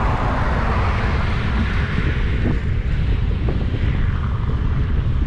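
Steady low wind rumble on the microphone, with the rush of road traffic passing, loudest near the start.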